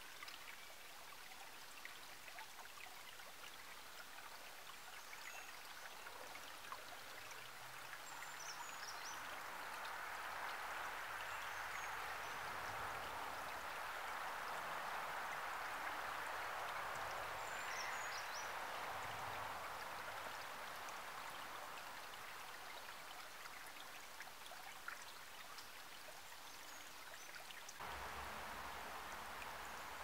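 Shallow stream trickling over rocks, a steady quiet wash of water. In the middle, distant road traffic swells up and fades away behind it, and a few faint high chirps come through. Near the end the sound changes abruptly to a fuller rush of faster water with a low rumble.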